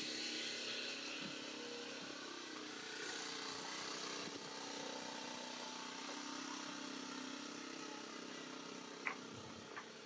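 A motor vehicle engine hums steadily under a hiss, and two brief clicks come near the end.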